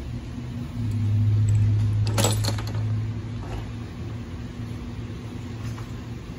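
A short metallic clatter of transmission parts handled on a steel workbench about two seconds in, over a steady low hum that is louder for the first few seconds.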